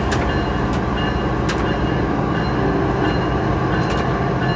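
Diesel locomotive engine running steadily, heard from inside the cab as an even hum with a low drone. A few light clicks break through, about a second apart early on and once more near the end.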